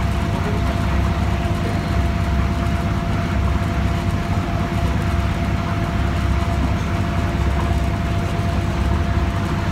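Sightseeing boat's engine running steadily under way, heard from inside the cabin: a constant low drone with a thin steady tone above it.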